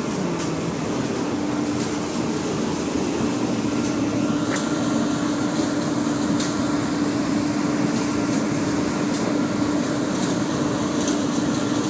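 Biomass sawdust burner running: a steady roar of blower and flame with a constant low hum and scattered faint ticks.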